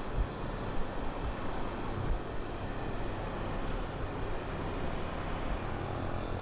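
Kawasaki Versys 250 parallel-twin motorcycle engine running steadily while riding, under wind and road noise, with a few low thumps in the first couple of seconds.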